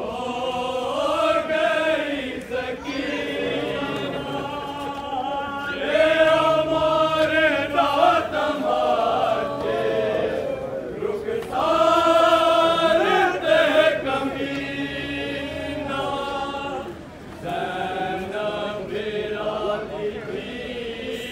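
Men's voices chanting a noha, a sung mourning lament, in long drawn-out phrases with short breaks between them.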